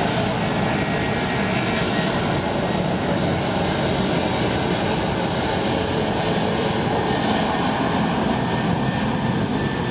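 Steady jet engine noise from an EVA Air twin-engine airliner as it rolls along the runway, watched from across the airfield.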